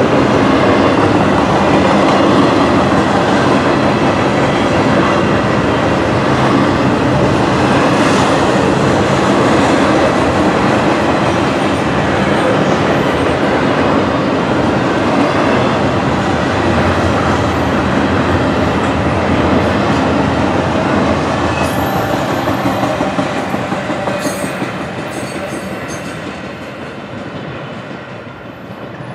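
Double-stack intermodal container cars of a freight train rolling past, their steel wheels running steadily on the rails, the sound fading away over the last several seconds as the end of the train passes.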